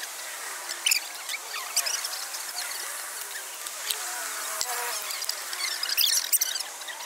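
Steady high chirring of insects outdoors, with a few sharp snaps of rubber bands going onto a watermelon, the loudest about a second in and around six seconds in.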